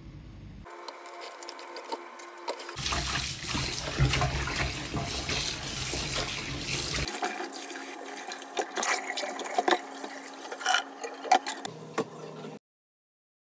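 Kitchen tap running into a stainless steel bowl as hands rinse and rub vegetables, water splashing loudly. Then scattered light clicks and knocks of the vegetables and steel bowl being handled in the sink, before the sound stops abruptly near the end.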